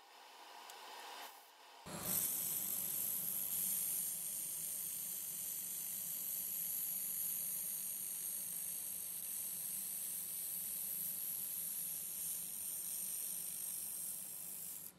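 Handheld 2 kW fiber laser welder (Sky Fire Mobile Weldstar) welding stainless steel with 0.8 mm filler wire: a steady hiss that starts abruptly about two seconds in and stops just before the end.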